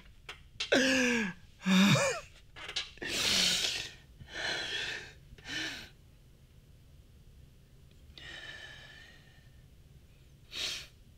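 A man's voice making two short cries that fall in pitch, then several loud gasping breaths, with one more sharp gasp near the end.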